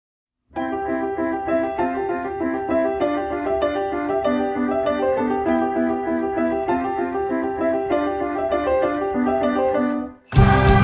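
Background music: a piano playing a quick, steady run of repeated notes that begins about half a second in. Near the end it cuts off and a louder music track starts.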